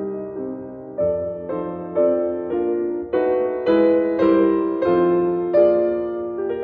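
Background piano music: slow, held chords with a new chord or note struck every half second to a second.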